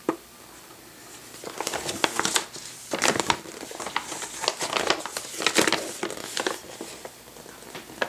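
A folded glossy paper deck insert being unfolded and handled, rustling and crinkling in repeated bursts for several seconds. A single sharp tap comes right at the start.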